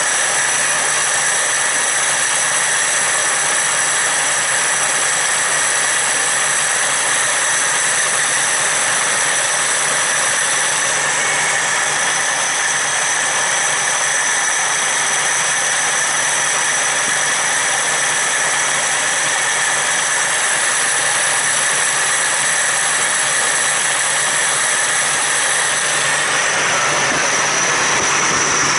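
Toyota Crown MS60 straight-six engine idling steadily, with a steady high whine over it.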